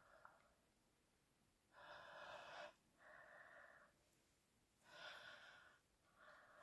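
Faint, slow breathing: two breaths, each an in and an out of about a second apiece.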